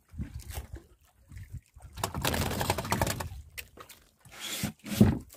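A person moving about on a small wooden outrigger boat: a stretch of rustling and scraping, then a sharp knock near the end.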